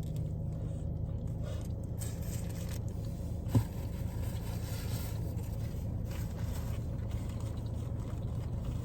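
Steady low hum, like an engine or motor running, with one short knock about three and a half seconds in.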